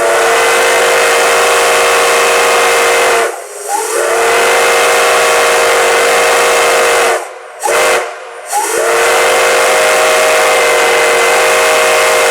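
Flag Coal No. 75's six-chime steam whistle blowing a chord over hissing steam in four blasts, long, long, short, long: the pattern of a grade-crossing signal. Each blast slides up into its chord as it opens.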